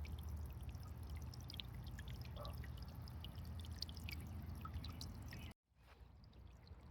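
Small solar bird-bath fountain spraying water outward through a nozzle attachment, with a steady faint splash of many small droplets falling back into the water. About five and a half seconds in it cuts out briefly, then returns quieter.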